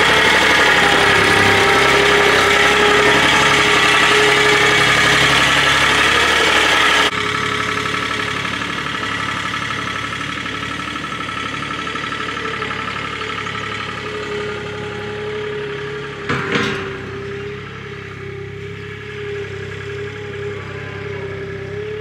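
Gehl skid steer engine running close by with a steady whine. About seven seconds in it drops abruptly to a quieter, more distant engine sound, and a single short knock comes near 16 seconds.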